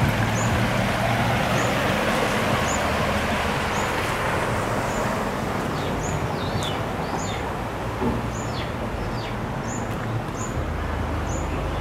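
A pickup truck driving through floodwater, its noise fading over the first few seconds. Meanwhile a bird repeats a short high chirp about once a second, and a few falling whistled notes sound near the middle.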